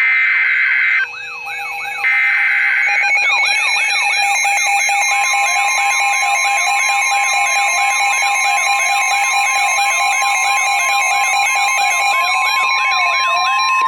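NOAA Weather Radio Emergency Alert System alert: short screeching bursts of SAME header data near the start, then the steady 1050 Hz warning alarm tone from about five seconds in, signalling that a warning follows. An electronic siren sweeping up and down about twice a second runs under both.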